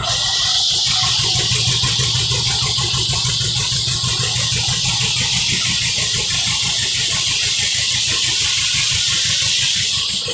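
Circular sawmill blade cutting through a tulip poplar log with a loud, steady hiss, over the fast, even putt of a 1935 John Deere W-111 two-cylinder power unit working under load. The cut stops abruptly at the end.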